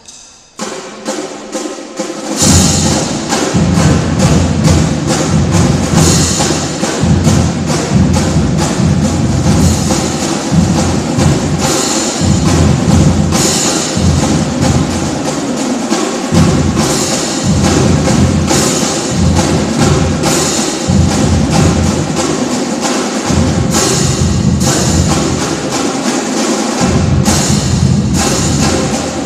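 Marching drumline playing: snare drums and marching bass drums in rapid, dense rhythms. A few separate sharp strikes open the passage, and the full line comes in loud about two seconds in.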